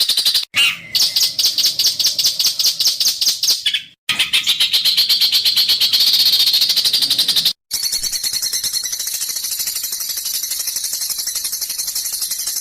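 Songbird giving a harsh, buzzy rattling song ('besetan kasar'): rapid, even rattles pitched high. The recording is spliced into separate clips, with brief silent gaps about half a second, four seconds and seven and a half seconds in. The last clip is quieter and higher-pitched.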